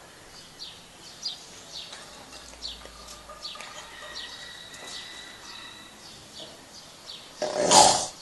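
A sleeping man snores once, loudly and briefly, near the end. Before it there are faint, high, short chirps that fall in pitch and repeat about twice a second.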